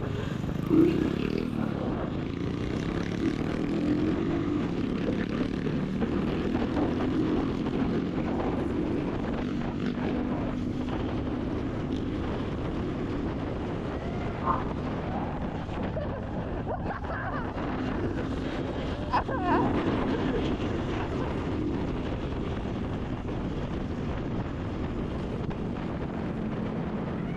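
Motorcycle engine running steadily at cruising speed.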